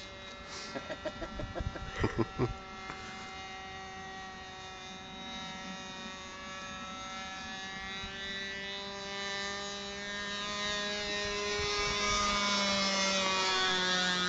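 Radio-controlled model airplane's motor and propeller giving a steady buzzing drone overhead. Its pitch drifts slowly and it gets louder over the last few seconds as the plane comes nearer. A few brief knocks sound in the first couple of seconds.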